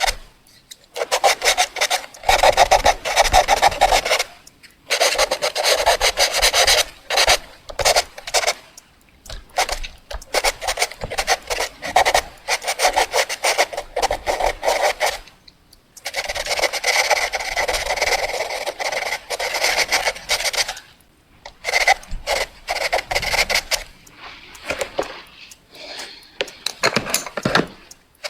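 Pencil writing on paper: quick scratchy strokes in runs of a few seconds, broken by brief pauses.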